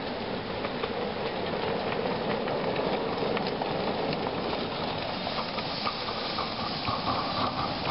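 Miniature live-steam locomotive running past with a steady hiss of steam and light clicks, and a thin steady tone coming in about five seconds in.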